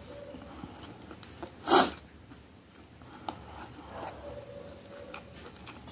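A single short, sharp burst of breath noise from a person, a little under two seconds in, over a faint steady hum, with a few faint clicks afterwards.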